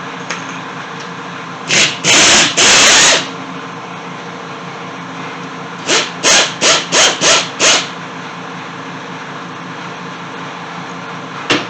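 A power tool running in short trigger bursts as it backs out corroded crankcase bolts on a Kawasaki KZ400 engine. It gives three bursts about two seconds in, a quick run of six bursts a few seconds later, and one brief burst near the end.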